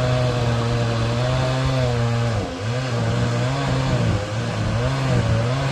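Two-stroke chainsaw running at high revs, cutting through a thick dead tree trunk on the felling cut. Its engine note dips sharply about two and a half seconds in, then wavers up and down as it works in the cut.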